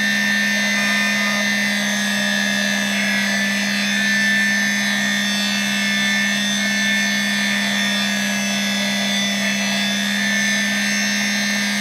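Mini lathe's electric motor running at a constant speed with a steady hum and whine while a facing cut is taken on the end of a brass rod.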